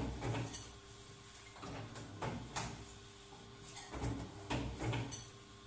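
Double-die paper plate machine at work, its dies pressing plates with a string of uneven clunks and clatters, over a faint steady motor hum.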